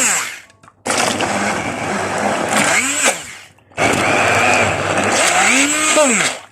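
Electric blender motor run in pulses, blending a thick mixture to a smooth paste. One burst ends about half a second in, then two more run about two and a half seconds each, the pitch dropping as the motor spins down after each.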